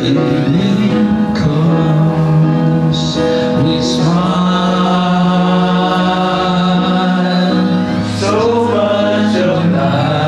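A man singing a love song into a handheld microphone over instrumental accompaniment, holding long notes.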